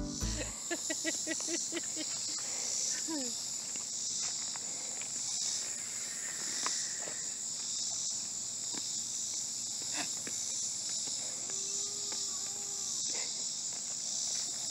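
Steady, high-pitched chorus of insects, with a few faint clicks and short calls over it.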